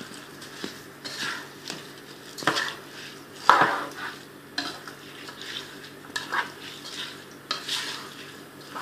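Soaked rice being stirred into frying vegetables and chicken in a cooking pot: irregular scraping strokes of the spoon against the pot over a light sizzle, with the loudest scrapes at about two and a half and three and a half seconds in.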